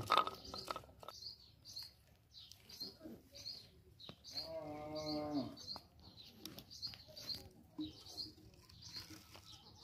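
Small birds chirping over and over in short high notes, and about four seconds in a farm animal gives one long moo-like call of just over a second that drops in pitch at the end. A brief clatter at the very start is the loudest sound.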